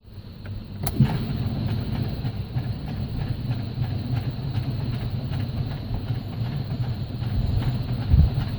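2012 Ford Focus failing to start, giving only a light repeated ticking instead of cranking, over a steady low rumble. There is one sharper click about a second in.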